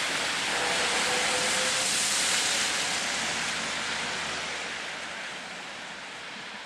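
Snowplow truck driving past on a slushy road: engine and tyre noise, a steady hiss that fades as the truck moves away.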